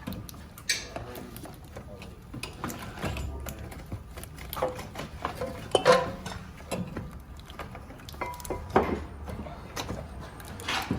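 Irregular metal clanks, clicks and knocks as a front CV axle shaft is worked and wiggled out from the car's suspension, a few strikes ringing briefly.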